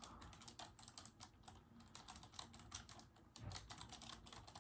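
Soft typing on a mechanical keyboard: quick runs of key clicks, pausing briefly twice.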